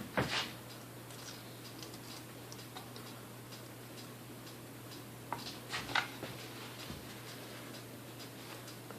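A few small clicks and taps of mixer parts being handled and fitted during reassembly of a vintage Sunbeam Mixmaster Model 12. One click comes right at the start, then a small cluster about five to six seconds in, the loudest near six seconds.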